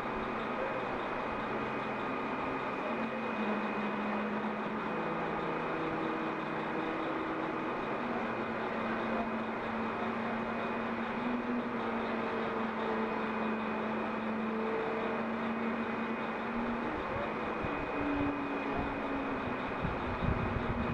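Truck engine and hydraulics running steadily while a Landoll tilt-bed trailer lowers a shipping container, with a faint high whine and held tones that shift in pitch now and then. Wind buffets the microphone near the end.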